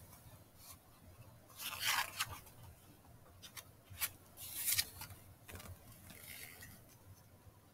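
Pages of a picture book being turned by hand: a few short papery rustles and slides with a light tap, the loudest about two seconds in.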